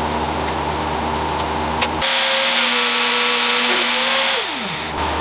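A steady low hum, then about two seconds in a power tool's motor cuts in with a loud hissing rush and a steady whine. About four and a half seconds in it is switched off and its pitch falls as it spins down.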